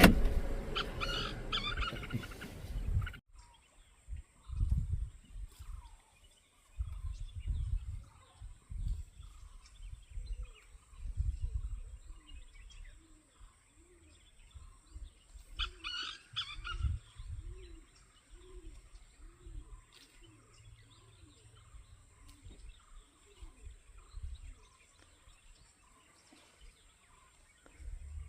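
Birds calling outdoors, with scattered high chirps and, midway, a run of short low rising-and-falling notes repeated nearly twice a second. Irregular gusts of wind buffet the microphone.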